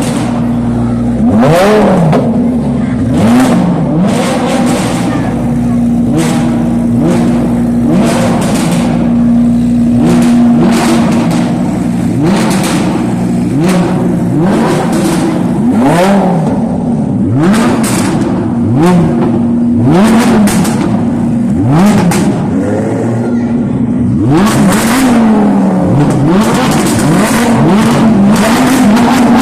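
Lamborghini supercar engine idling and being revved over and over, each rev a quick rise and fall in pitch, with short sharp noise bursts between some of the revs.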